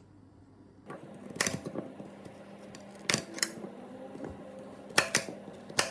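Kitchen knife chopping through hard raw carrots: about five sharp knocks, spaced irregularly.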